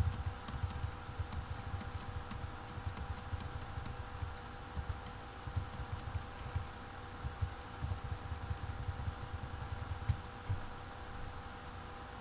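Computer keyboard keystrokes and clicks, a quick run of them in the first few seconds and a few more near the end, with dull thumps on the desk, over a steady electrical hum.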